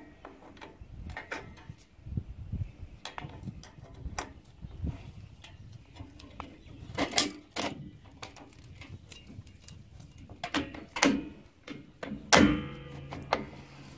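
Metal clicks and clinks from drum brake parts being handled as the shoe adjuster is worked into place between the brake shoes. A few louder knocks come along the way, and the loudest, near the end, rings briefly.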